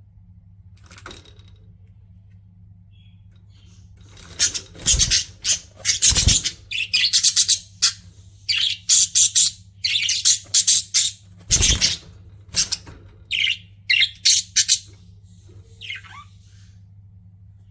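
Pet budgerigars chirping and chattering in quick runs of short high calls, starting about four seconds in and thinning out near the end, with three louder bumps among them.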